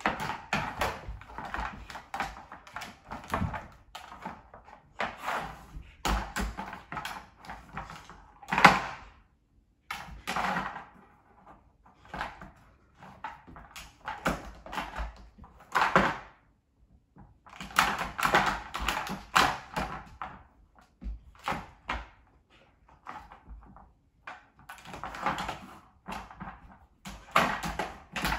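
A hard plastic dog puzzle toy being pawed and shoved across a hardwood floor by a husky puppy: irregular clusters of knocks, rattles and scrapes every second or two, mixed with the clicking of the puppy's claws on the wood.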